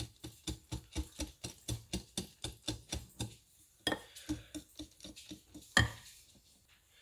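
Whisk stirring cake batter in a ceramic mixing bowl, its wires clicking against the bowl about four times a second; the stirring stops about three seconds in, a few slower strokes follow, then one louder knock near the end.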